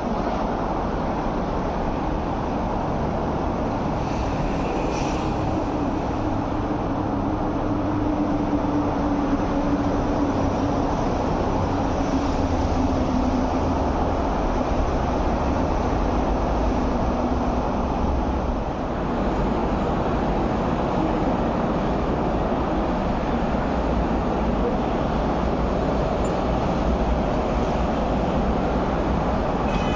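Steady rumbling noise of East Rail Line electric trains running on the line, with a faint humming tone that falls slowly in pitch between about five and seventeen seconds in.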